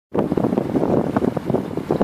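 Wind buffeting the microphone in uneven gusts, a loud rumbling rush that surges and dips from moment to moment.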